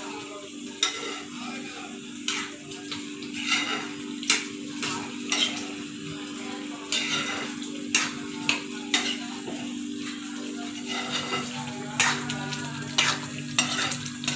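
A spatula stirring thick potato curry in a kadai, scraping and knocking against the pan at irregular intervals of about once a second, over a soft sizzle of the gravy cooking. A low steady hum runs underneath.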